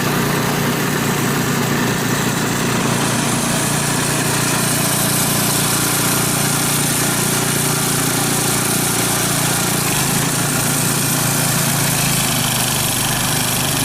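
Gasoline snowblower engine running steadily, its note shifting slightly near the end.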